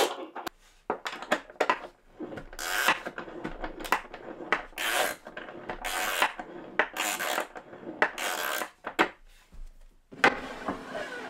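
Small ratcheting spanner clicking in repeated short runs as it winds the threaded steel bar of a bench-dog stop, moving the wooden stop block along a wooden bench top.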